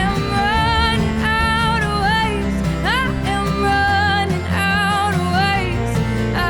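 Background music: a passage without words, with a wavering lead melody over steady bass notes.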